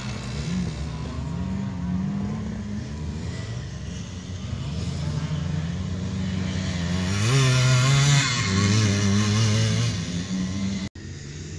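Vintage enduro motorcycle engine running on a dirt course, its note rising and falling as the rider works the throttle. About seven seconds in, the revs climb sharply and stay up for a few seconds. The sound cuts out for an instant just before the end.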